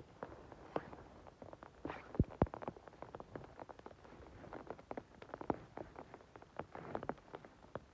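Rustling and crackling of moss, grass and twigs as a gloved hand picks small mushrooms from the forest floor, with many irregular clicks and snaps. Two louder thumps come a little after two seconds in.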